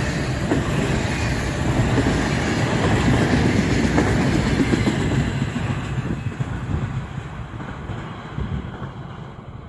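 Container freight train's wagons rolling past at speed, wheels clattering over the rails. The sound fades from about five seconds in as the end of the train passes and draws away.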